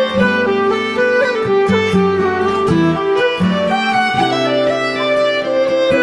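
Instrumental background music: held melodic notes over plucked notes.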